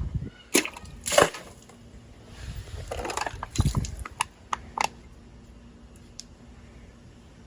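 A Leatherman multitool blade cutting into a plastic bottle: a series of sharp cracks and crinkles of plastic over the first five seconds, the loudest about a second in.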